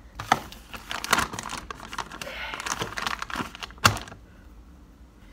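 Plastic packaging crinkling and rustling as a makeup-remover wipe is pulled out, with a sharp snap near four seconds in.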